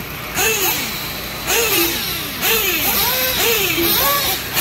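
Electric RC off-road cars racing on a dirt track, their motors whining in overlapping rises and falls of pitch as they accelerate and brake through the turns, with bursts of rushing noise in between.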